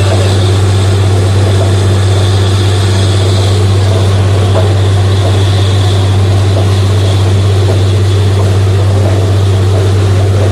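Borewell drilling rig running without a break: a deep, steady engine-and-compressor drone with a constant rushing hiss over it.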